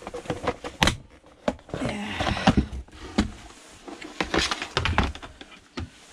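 Plastic vacuum cleaner housing being prised apart by hand: irregular clicks, knocks and creaks of the casing, with short scraping stretches.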